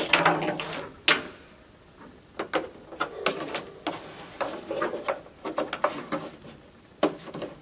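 Plastic 5-gallon fuel cans shifted in a wooden holder as bungee cords are hooked across them: irregular clunks, rattles and clicks, the sharpest about a second in.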